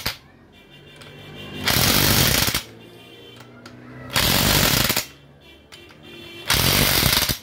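Corded electric impact wrench hammering on the bolts of an outboard powerhead in three bursts, each about a second long and roughly two and a half seconds apart.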